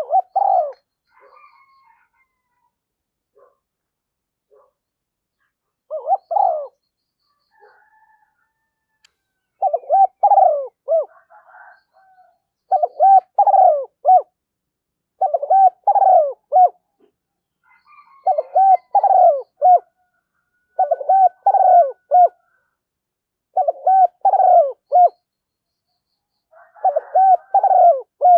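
Spotted dove cooing: short multi-note coo phrases. The first few are spaced out, then from about ten seconds in they repeat steadily every two and a half to three seconds.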